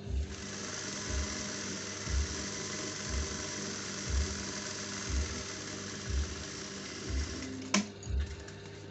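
Juki industrial lockstitch sewing machine running steadily as fabric is fed through, stopping with a sharp click near the end. Under it, background music with a low thump about once a second.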